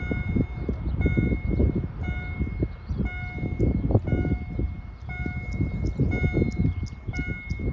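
GZT30 electronic level-crossing bell sounding its warning tone over and over at a steady pace, signalling that the crossing is closing for an approaching train. A louder, irregular low rumble runs beneath it.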